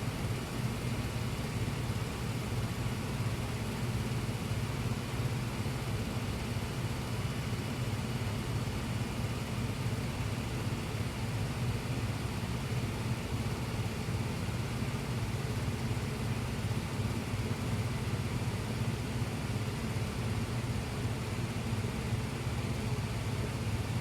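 Household furnace running with a steady low hum and rumble.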